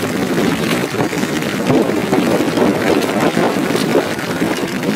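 Constant rustling and scuffing of nylon rain gear as the wearer walks, with a few sharp clicks.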